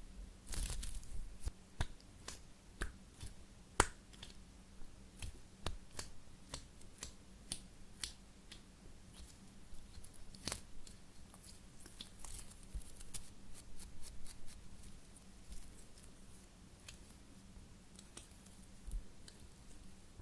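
A soft foam squishy toy shaped like a cup of ice cream being squeezed and handled, giving irregular close-up crackles and clicks, with denser bursts about half a second in and around ten to fourteen seconds in.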